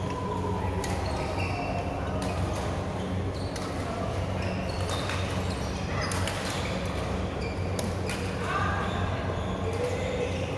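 Badminton rackets striking shuttlecocks, sharp hits at irregular intervals in a large reverberant hall, with short squeaks of court shoes and a steady low electrical hum.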